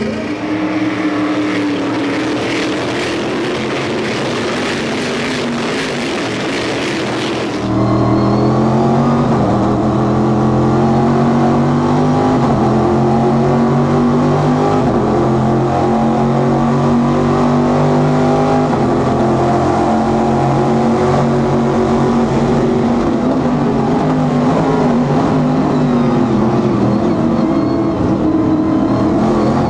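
A Stock Car Brasil race car's engine running at low, fairly steady revs. For about the first quarter it is heard from beside the car with a loud hiss over it. It then changes suddenly to the fuller, louder engine note heard from inside the cockpit.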